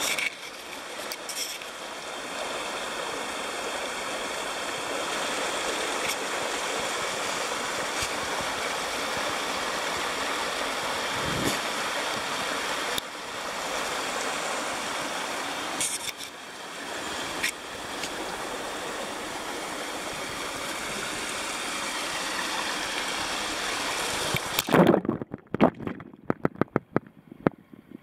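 Warm spring water running out from under a rock ledge and splashing over stones into a pool, a steady rush. About 25 seconds in, the microphone goes under water: the rush drops away abruptly, leaving muffled knocks and bumps.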